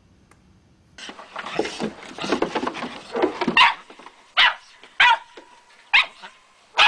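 Pug barking: a rapid run of overlapping barks and yips, then single short, sharp barks about once a second.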